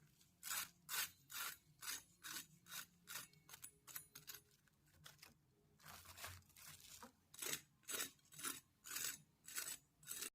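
Potato being scraped in repeated short rasping strokes, about two a second, fainter and more scattered in the middle.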